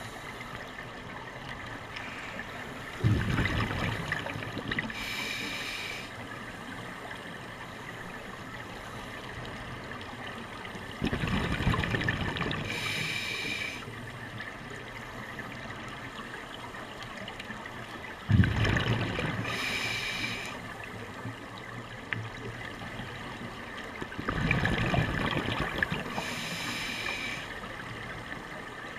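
Scuba diver breathing through a regulator underwater. There are four breaths about seven seconds apart: each starts with a loud gurgling burst of exhaled bubbles, then the regulator hisses on the next inhale.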